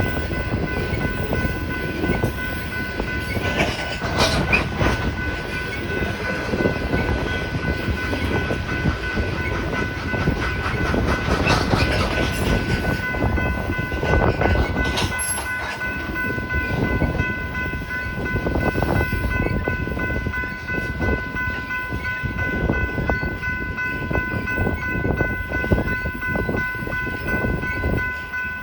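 Train rolling past on the rails, its wheels clattering in a rapid irregular run of knocks over the rails, with several steady high tones held throughout. Wind on the microphone adds a rough rumble underneath.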